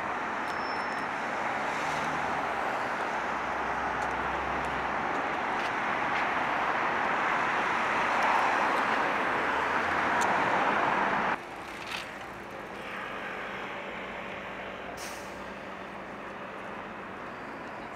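Road traffic noise that swells to a peak, then cuts off suddenly about two thirds of the way through, leaving a quieter, steady background hum.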